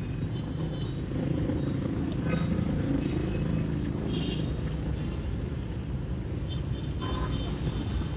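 Busy street traffic: a steady rumble of motorbike and car engines running and passing.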